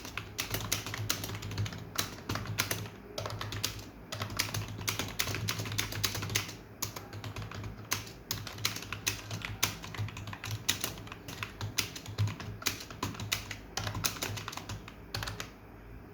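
Fast typing on a computer keyboard: rapid runs of key clicks with a few brief pauses, stopping shortly before the end.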